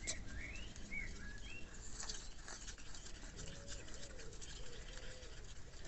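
Thick, still slightly lumpy water-based casting compound being stirred by hand in a small plastic pot, the stirring stick scraping and ticking round the sides and bottom. A few short bird chirps near the start.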